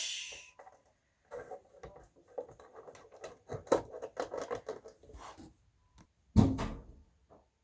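Hands working a 9-volt battery apart: a run of irregular clicks and scrapes, then one loud knock about six and a half seconds in.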